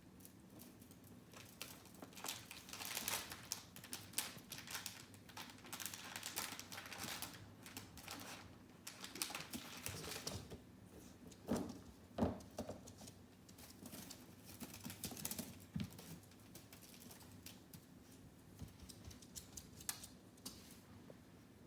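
Basenji puppy playing: faint rustling, scratching and clicking as it moves about, with two short, louder pig-like grunts about halfway through.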